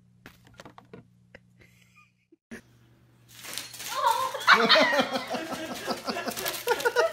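A few faint clicks, then a person laughing loudly from about three seconds in, in quick repeated bursts.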